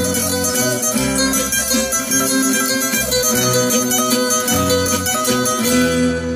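Live band playing the instrumental passage of a waltz, with melody notes over a bass line that changes about once a second and no singing.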